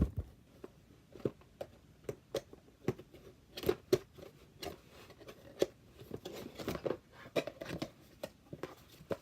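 A cardboard product box and its packaging being opened and handled: irregular clicks, taps and short rustles.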